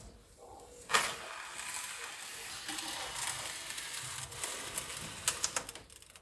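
A metal baking tray pushed across the stone floor of a wood-fired oven, scraping steadily, with a sharp clank about a second in and a few metal clicks near the end.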